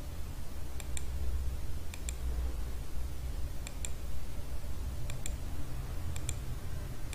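Computer mouse clicks: about five quick press-and-release double clicks, roughly one every second or so, over a steady low hum. Each click steps a CNC simulator program one block at a time in single-block mode.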